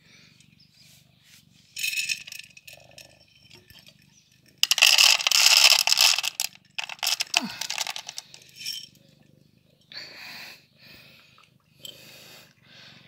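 Rattling and rustling around a plastic bowl of dry cat food as a cat comes to eat, loudest for about two seconds in the middle.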